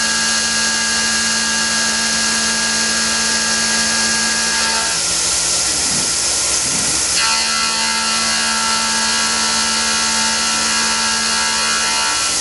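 Tormach PCNC 1100 CNC mill face milling under flood coolant: a steady hiss of coolant spray and spindle, with a steady machining tone from the cutter in the work. The tone drops out for about two seconds near the middle, then resumes.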